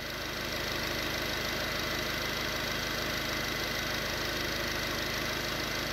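VW 1.6 TDI (CAYC) four-cylinder common-rail diesel engine idling steadily.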